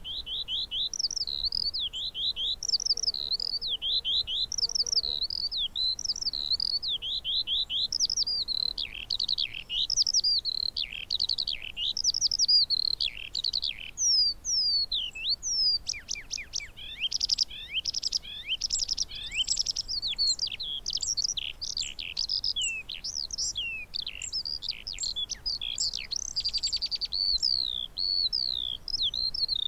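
Eurasian skylark singing: a continuous, rapid, high warbling song with no pauses, broken in the second half by very fast trills.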